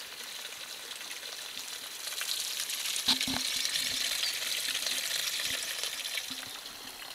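Spring water trickling and burbling as it flows out, a steady hiss that grows louder about two seconds in, with a few soft knocks in the middle.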